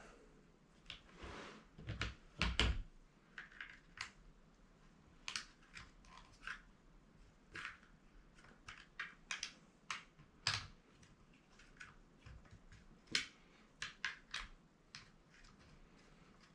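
Scattered small clicks, knocks and scrapes of metal parts being handled as the quick-detach barrel of an airsoft sniper rifle is refitted and secured, with a heavier cluster of knocks about two seconds in.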